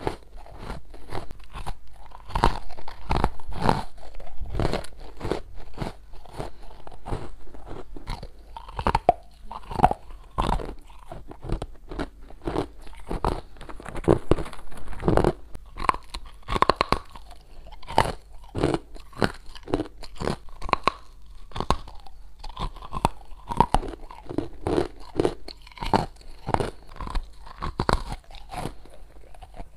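Biting and chewing hard, chalky freezer frost chunks: a continuous run of crisp crunches, two or three a second.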